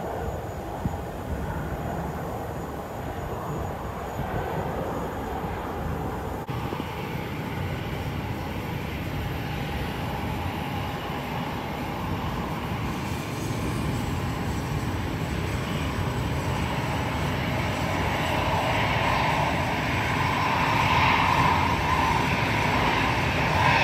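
Jet airliner engines running as the plane taxis on the apron, a steady rushing drone that swells gradually and is loudest in the last few seconds.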